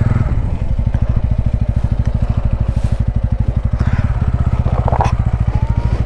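Motorcycle engine running steadily at low revs on a rough, rocky off-road track. A few clatters and scrapes sound about four to five seconds in.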